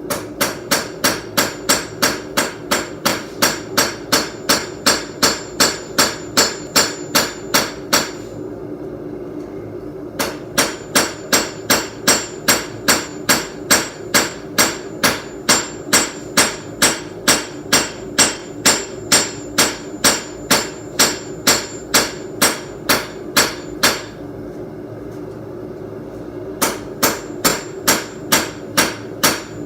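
Hand hammer forging hot steel on an anvil, drawing a piece of old farrier's rasp out longer: about three blows a second in three runs with short pauses between, each blow with a bright ring.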